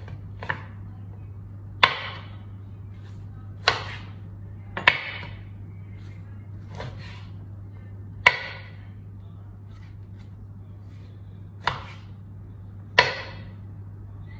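A large knife chopping through a raw rack of rib chops onto a wooden cutting board: about seven sharp, irregularly spaced strikes, a few of them loud, over a steady low hum.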